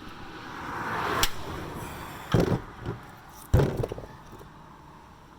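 Hammer blows on a tapered bottle jack driven into the end of a steel exhaust pipe to stretch it open. There is one sharp strike about a second in, then two heavy thuds a little over a second apart.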